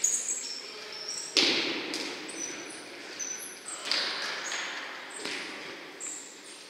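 Sneakers squeaking on an indoor sports floor, with three hard thumps of a futsal ball that echo around a large hall.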